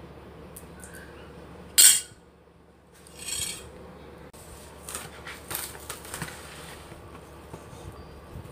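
A metal spoon clinks sharply once against the plate about two seconds in. Then Hitachi Wrap plastic cling film rustles and crackles in short bursts as it is pulled from the roll and laid over the plate.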